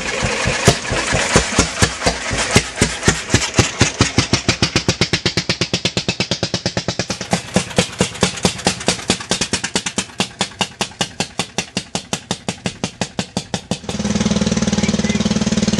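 NSU Bison 2000's two-litre single-cylinder engine firing in separate, distinct beats that speed up from about three to about six a second as it gets going after a push start. About fourteen seconds in, the sound changes abruptly to a steady, continuous running note with a strong low hum.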